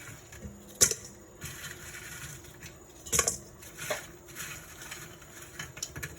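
Kitchen handling sounds: a few sharp knocks and clinks of dishes or utensils being set down and moved, the loudest about a second in.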